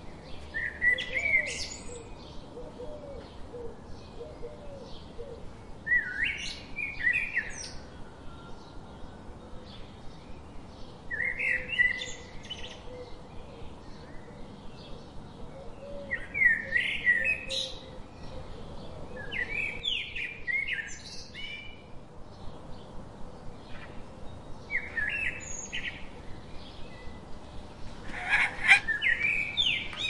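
Bird calling in short bursts of chirping notes, each burst a second or two long and repeated every four to five seconds, with a louder, busier burst near the end.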